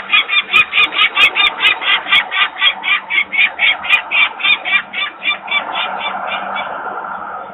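Adult peregrine falcon giving its rapid, harsh 'kak-kak-kak' alarm call, about four or five notes a second, in a long unbroken run that stops near the end. The call is a parent's alarm at disturbance near the nest. A steady mechanical noise runs underneath.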